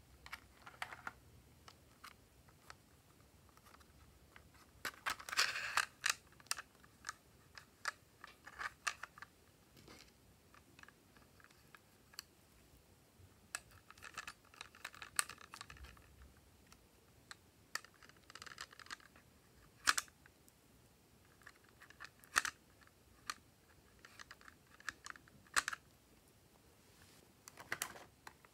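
Handling of a plastic toy makeup palette: scattered sharp clicks and taps of the plastic case, and a few stretches of scraping as makeup is scraped out with a small plastic spatula.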